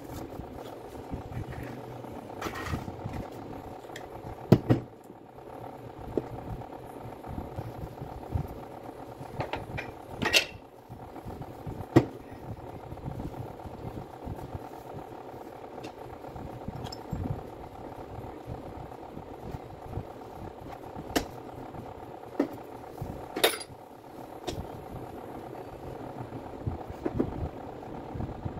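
Metal parts of a demolition hammer being handled: scattered sharp clicks and knocks of metal on metal, a few louder than the rest, over a steady background hum.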